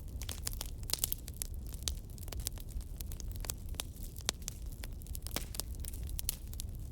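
Bonfire crackling: irregular sharp pops and snaps of burning wood over a steady low rumble.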